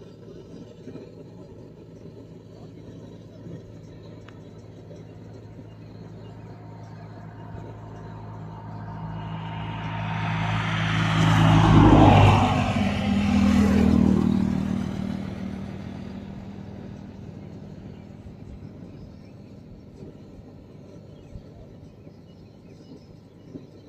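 A motor vehicle passing by, its engine and tyre noise swelling to a peak about halfway through and then fading away, over a steady low engine hum.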